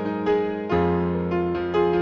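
Background music: a piano-like keyboard playing a melody of short notes over held bass notes.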